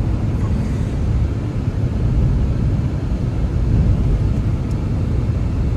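Blizzard wind blowing steadily, a loud, deep rumble of noise without a break.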